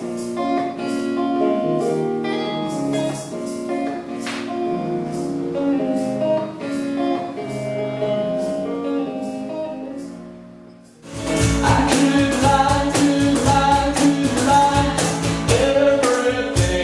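Live acoustic music: a guitar passage that fades out about ten seconds in, then a different acoustic performance cuts in abruptly with singing over a steady low beat.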